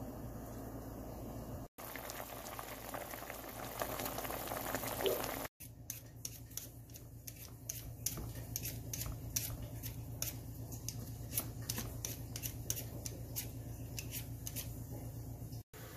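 Pot of goat curry simmering and bubbling, then, from about five seconds in, a handheld vegetable peeler scraping raw potatoes in short strokes, about two a second.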